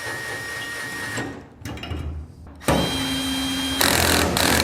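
Milwaukee M12 cordless hex driver running in several short bursts, driving the screws that hold the TIG rod holders. Each run has a steady whine, and the last two are the loudest.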